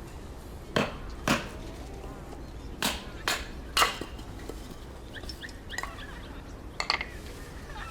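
A series of sharp knocks, about six in all, coming in uneven groups, with faint bird chirps between them.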